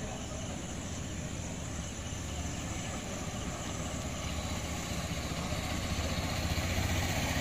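Steady low engine rumble under general outdoor noise, growing gradually louder toward the end.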